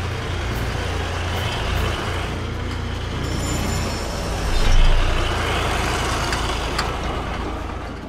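Heavy truck engine sound effect: a big engine running with a steady low rumble, swelling louder about five seconds in. A brief high-pitched sound comes a little past three seconds in.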